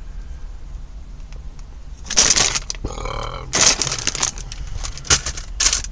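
MRE plastic food pouches and packaging crinkling and rustling in loud, irregular bursts from about two seconds in, over a low steady hum.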